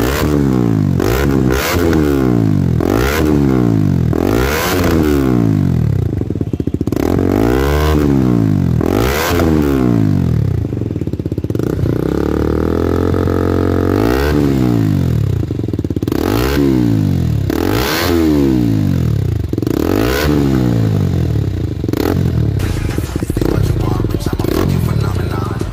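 KTM RC 200 single-cylinder engine being revved hard through a handmade bend pipe and aftermarket exhaust, with the dB killer taken out. The throttle is blipped over and over, each rev rising and dropping back, about once a second, with one longer held rev about halfway through.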